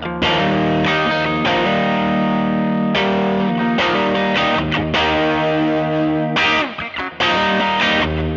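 Fender Telecaster played with no pedals into a 1966 Fender Vibrolux Reverb tube combo (two 6L6 power tubes, two 10-inch Jensen speakers) pushed hard through an attenuator, so the amp breaks up into overdrive. Chords are struck about once a second and left to ring, with a short drop in sound a little before the end.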